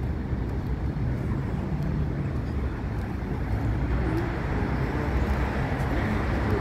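Steady road traffic noise from cars running along a city avenue, a continuous low rumble that grows slightly louder near the end.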